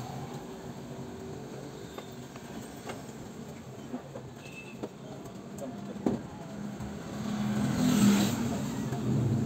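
A motor vehicle passes on the road, its engine swelling to a peak about eight seconds in and then fading, over steady traffic background. A few light clicks and knocks come before it.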